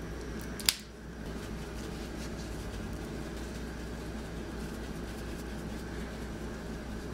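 A single sharp plastic click about a second in, as the flip-top cap of a Morton Season-All seasoning shaker snaps open, then a steady low kitchen hum while the seasoning is shaken into the pot.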